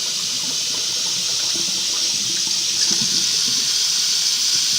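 Tap running steadily with hot water, an even hiss of water into a sink.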